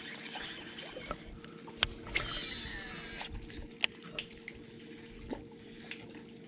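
Water lapping and dripping at a small boat's hull, with a low steady hum underneath. Sharp ticks come a couple of times, and a brief hiss starts about two seconds in.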